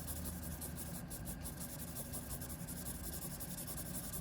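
Blending stump rubbing steadily back and forth on paper, blending the pencil shading of a drawing.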